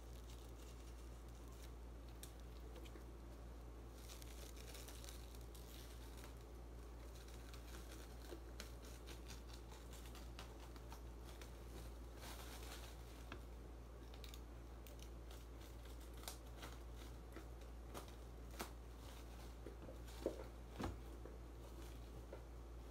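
Faint cutting, tearing and crinkling of plastic stretch wrap as a cutter slits open a parcel, with scattered sharp clicks and rustles over a steady low hum.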